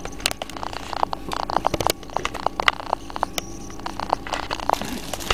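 Chicken pieces being pressed and turned in dry breadcrumbs: a crisp crackling made of many small irregular clicks.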